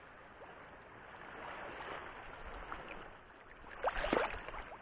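Shallow seawater sloshing and splashing as someone wades through it, with a few louder splashes about four seconds in.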